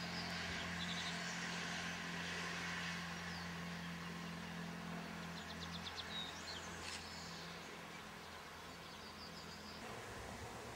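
A steady low engine hum, fading away over the last few seconds, under outdoor background noise, with small birds chirping a few short trills.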